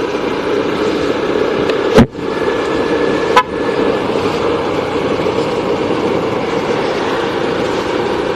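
Steady road noise of a vehicle on the move, engine and wind, with a loud sharp knock about two seconds in and a smaller one about a second later. A brief horn-like tone sounds between them.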